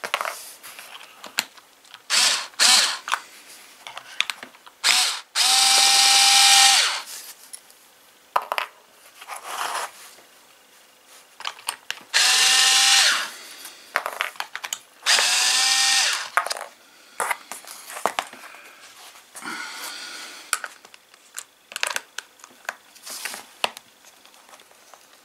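Cordless drill-driver with a long Torx bit spinning in several short bursts, each a second or so, as it backs screws out of a mini chainsaw's plastic housing. Small clicks and rattles of screws and plastic come between the bursts.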